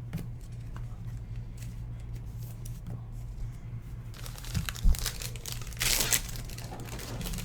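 Crinkling and tearing of plastic card packaging as trading-card packs are opened and handled, growing louder about four seconds in, with a single thump near five seconds and a louder rustle around six. A steady low hum runs underneath.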